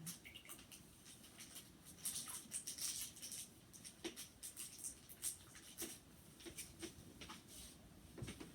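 Faint rustling and light clicks of hands handling food packets and kitchen items, with a denser crinkly patch about two seconds in.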